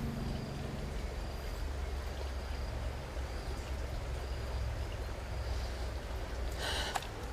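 Creek water running over rapids, with a short splash near the end.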